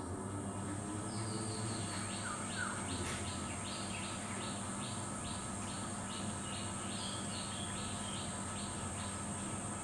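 Background birdsong: a short high note repeated about twice a second, with two brief falling whistles about two and a half seconds in, over a steady high insect drone.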